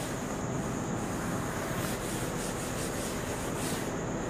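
Cloth duster rubbing across a chalkboard in repeated strokes, wiping chalk writing off.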